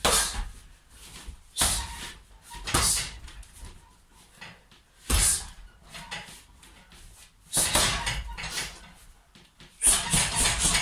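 Gloved punches landing on a hanging heavy bag, single hits a second or two apart, then a quick flurry of punches near the end.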